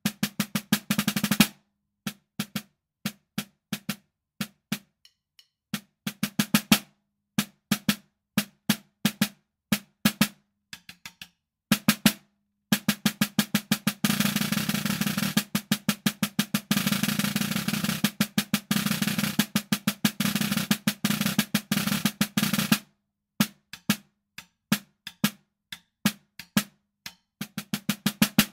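Snare drum played with sticks in a rudimental solo of diddle patterns: quick groups of strokes broken by short gaps, then a long sustained roll from about halfway through that lasts around ten seconds, before the playing returns to spaced figures near the end.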